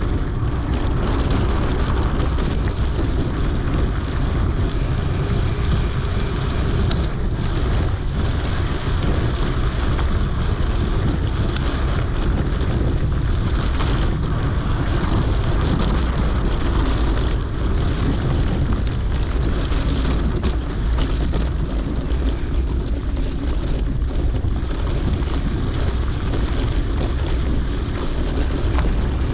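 Wind buffeting a GoPro's microphone while a mountain bike rolls along a dirt trail, a steady rushing noise with scattered clicks and rattles from the bike.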